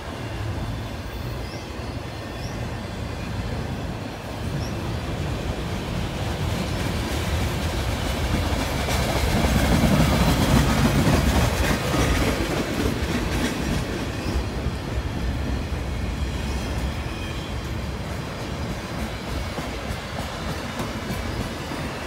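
Freight cars of a passing train, autoracks and a boxcar, rolling by: a steady rumble of steel wheels on the rails with clickety-clack over the joints, loudest about ten seconds in.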